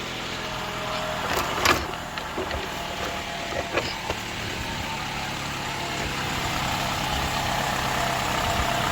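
The 4-cylinder engine of a 2013 Toyota RAV4 idling steadily on fresh oil just after an oil change, sounding healthy. A few brief clicks and knocks come in the first half.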